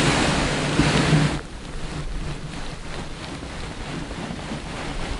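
Wind buffeting the microphone: loud at first, then dropping abruptly about a second and a half in to a steadier, weaker rush.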